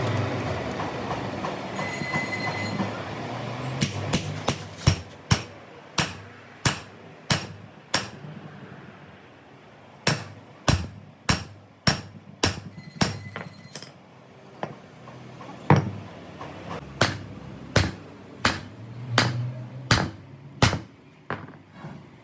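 A hammer striking metal in runs of sharp blows, about two a second, with short pauses between the runs.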